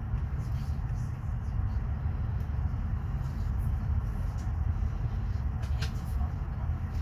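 Regional train running slowly, heard from inside the passenger car: a steady low rumble of wheels on rail with faint clicks over rail joints and points, and one sharper click about six seconds in.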